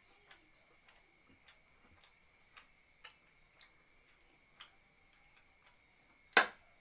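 Spoon and fork clicking against a plate while eating: light, irregular clicks, with one sharp, much louder clink about six seconds in.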